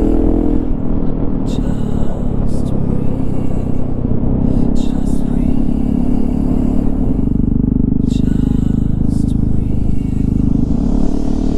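Husqvarna 701 Supermoto's single-cylinder four-stroke engine running under way at a fairly steady pitch.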